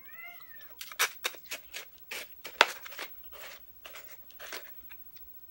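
Sharp, irregular crunchy clicks, a few a second, as the icy last bits of a slushy are worked through a straw and eaten. A brief rising-then-falling tone opens it.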